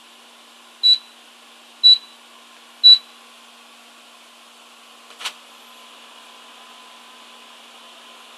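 Panasonic commercial microwave oven sounding three short high beeps about a second apart as its heating cycle ends, then its door latch clicking open a couple of seconds later, over a steady hum.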